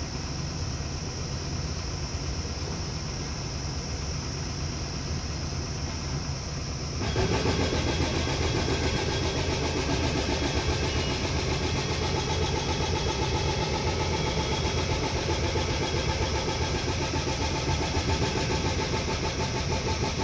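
Engine of heavy earthmoving machinery running steadily. About seven seconds in, the sound jumps abruptly louder and busier.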